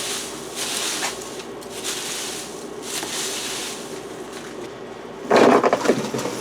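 Rhythmic scraping strokes from tree-removal work, about one a second, with a louder crunching scrape a little past five seconds in.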